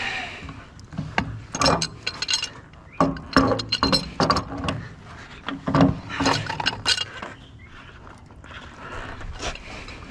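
Irregular metal clanks and clinks from hand tools working on a scrapped water heater while its brass fittings are stripped off. They come in clusters, thinning out near the end.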